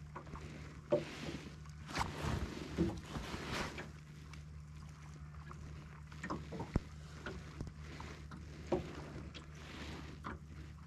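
Water lapping and slapping against the hull of a small drifting boat, with scattered short knocks and a steady low hum underneath.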